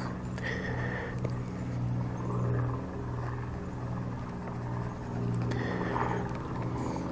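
Engine running steadily, a low even hum. Two brief faint scrapes of a small knife cutting into grapefruit peel, one near the start and one about five and a half seconds in.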